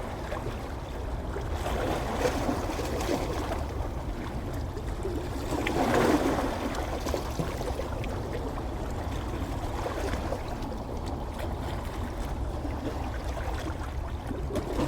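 Ocean waves washing onto a beach: a steady wash of surf that swells louder about six seconds in and again near the end.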